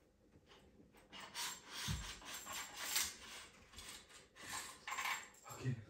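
An e-bike's saddle and battery-holding seatpost being unclamped and slid up out of the metal frame tube: metal scraping and sliding in two long pulls, with clicks and a low knock about two seconds in.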